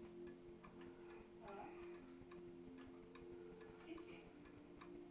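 Small wooden novelty cuckoo clock ticking faintly and steadily, about two and a half ticks a second.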